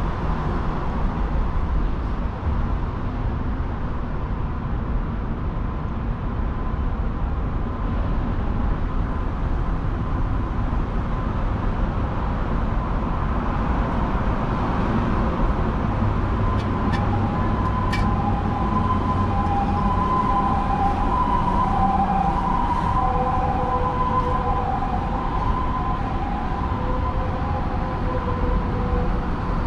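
Steady low rumble of distant city traffic. From about halfway, a faint wavering tone sits over it, and a few faint clicks come just after the middle.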